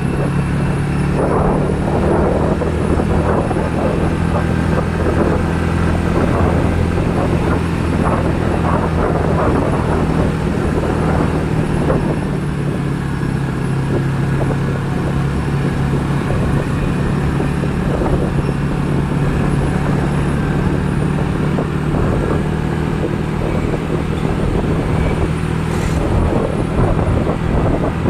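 A vehicle engine running steadily at an unchanging low hum, with traffic noise around it, and a brief click near the end.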